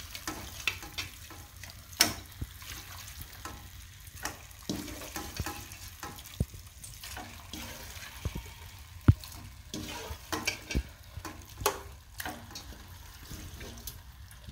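Raw chicken pieces being dropped into a stainless-steel kadai of frying masala: irregular knocks and clinks against the pan over a light sizzle.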